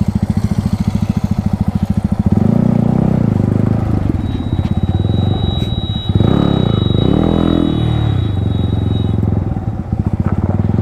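Yamaha MT-15's single-cylinder engine with an Akrapovic exhaust running with a rapid low beat. About two seconds in it picks up speed, and around six to eight seconds in it is revved in a rising and falling swell before settling back.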